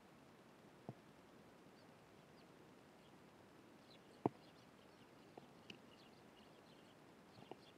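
Faint scattered chirps of Eurasian tree sparrows, with a handful of short sharp taps, the loudest about four seconds in.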